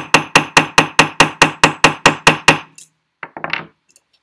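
Small riveting hammer tapping a steel dapping punch in a fast, even run of about five blows a second, flaring the end of a tube rivet on a steel bench block; each blow has a short metallic ring. The tapping stops about two and a half seconds in, followed by a brief rustle of handling.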